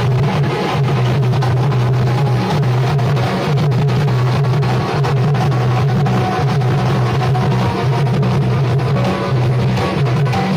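Amplified band music with no singing: dense, steady drumming over a held low note.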